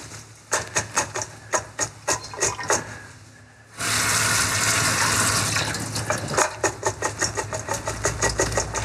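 Kitchen sink tap turned on about four seconds in, water running hard into a metal bowl as it is rinsed. A run of sharp clicks and clinks comes before the water starts and goes on under it.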